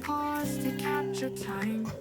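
Background music: a gentle song with acoustic guitar and sustained notes.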